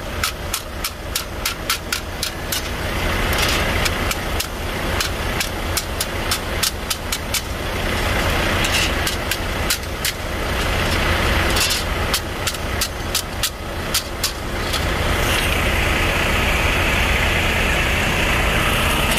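Hammer striking a metal licence plate on pavement: series of sharp metallic taps, about three a second, with a pause and a second series after about eight seconds. A truck engine idles steadily underneath, and a steady hiss grows louder in the last few seconds.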